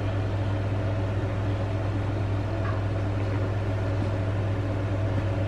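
A steady low machine hum, even in level.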